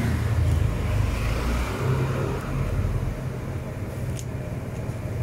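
Steady low rumble of road traffic from passing vehicles, with a short click about four seconds in.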